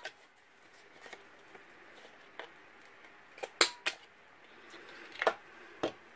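Handheld corner rounder punch snapping through the corners of kraft cardstock: a few sharp clicks, two of them close together about three and a half seconds in and two more near the end.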